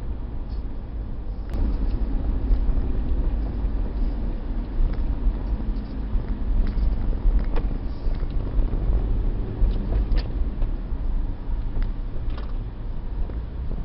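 Steady low road and engine rumble inside a vehicle's cabin while driving on a freeway, louder from about a second and a half in, with a few faint clicks.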